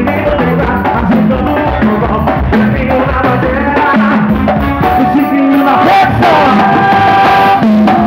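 Live band music with an electronic keyboard and hand-played conga drums.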